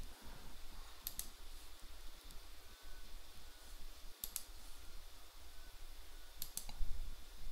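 Computer mouse clicking: three quick pairs of clicks, about a second in, about four seconds in and about six and a half seconds in, over a faint low hum.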